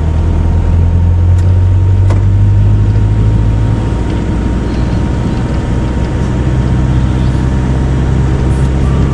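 Pickup truck engine running with tyre and road noise, heard from inside the cab: a steady low drone, with two light clicks a couple of seconds in.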